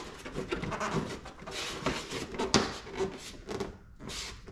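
Carbon fiber wheel well extension rubbing, scraping and clicking as it is pressed and worked into place against a Corvette's fender and plastic wheel liner, with a sharper click about two and a half seconds in.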